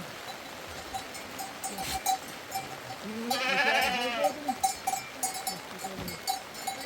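One long, wavering bleat from a sheep or goat of the flock about three seconds in, with a small livestock bell clinking on and off.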